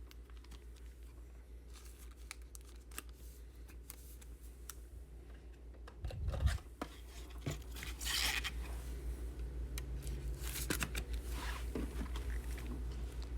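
Faint rustling, crinkling and scraping of trading cards and their plastic sleeves and packaging being handled, over a low steady hum. There is a soft thump about six seconds in and louder rustles a couple of seconds later.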